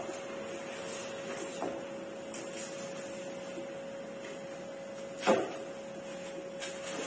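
Faint knocks and one loud thump about five seconds in as a Nilkamal marble-top dining table is tipped over and stood up on the floor, over a steady high hum.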